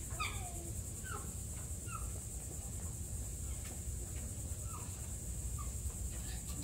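A series of five short, falling animal calls, the first the loudest, spaced about a second apart with a gap in the middle, over a steady low outdoor rumble.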